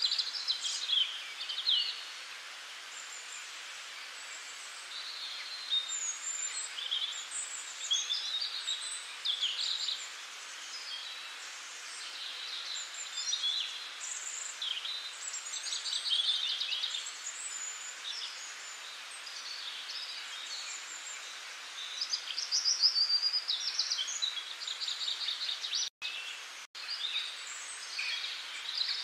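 Several birds chirping and trilling over a steady hiss, with short calls and quick trills coming thick and fast. The sound cuts out briefly twice near the end.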